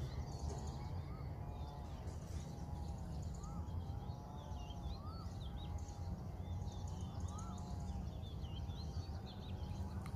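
Several birds calling: a repeated wavering call with a short rising note every second or two, and quick high chirps throughout, over a steady low background noise.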